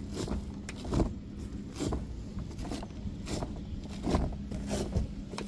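A steady low hum runs throughout, with scattered knocks and rustles about once a second, like handling noise from working under a camper.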